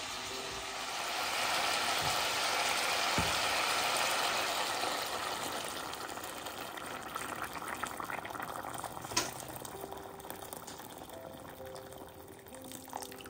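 Water poured in a steady stream into an enamelled cast-iron pot of browned beef chunks, filling it. The pouring swells about a second in and slowly tapers off, with one light knock about nine seconds in.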